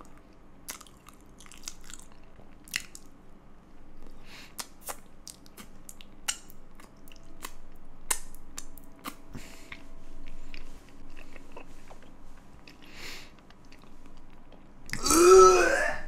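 Crunchy chewing close to the microphone, with many short crackles and clicks of food being bitten and chewed. Near the end a loud, drawn-out vocal cry with a wavering pitch.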